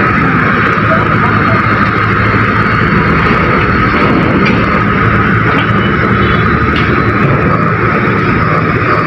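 Steady drone of heavy container-handling machinery: a large diesel engine running, with a constant high whine over it, as a ship's crane works a container.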